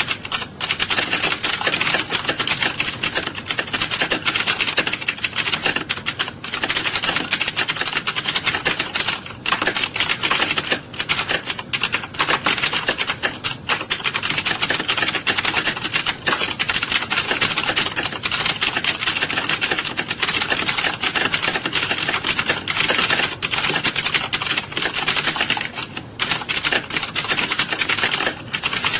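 Many keyboards typed on at once in a typing class: a dense, continuous clatter of keystrokes with no breaks.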